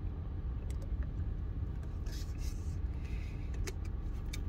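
Steady low rumble inside a car, with a few small clicks and a short rustle about two seconds in from a plastic drink bottle being sipped from and lowered.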